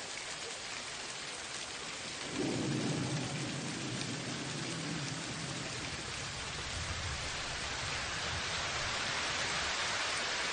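Steady hiss of rain, with a low rumble of thunder coming in about two and a half seconds in and slowly easing off.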